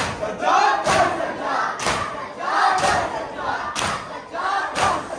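Crowd of men doing matam, the Shia mourning rite of beating the chest with open hands in unison: a sharp collective slap about once a second, with many men's voices chanting between the strikes.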